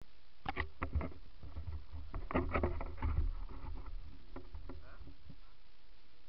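Knocks, clicks and rubbing from a handheld or helmet-mounted action camera being handled and fitted, over a low wind rumble on the microphone. The knocks come in two clusters in the first half, then thin out to a few light clicks.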